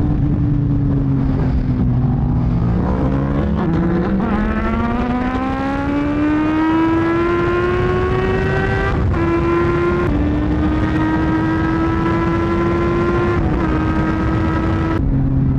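Aprilia Tuono V4 motorcycle's V4 engine under way, revs climbing steadily for several seconds, then dropping sharply at an upshift about nine seconds in. It then runs at nearly steady revs with brief dips at further shifts, over constant wind rush.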